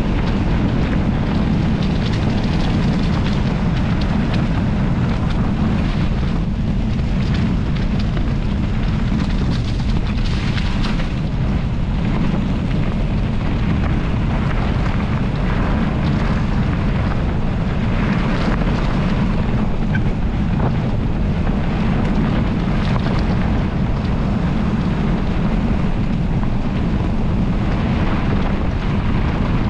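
Wind buffeting the bike-mounted camera's microphone and a mountain bike's tyres rumbling over a gravel forest road, a steady low roar with scattered clicks and rattles from bumps in the surface.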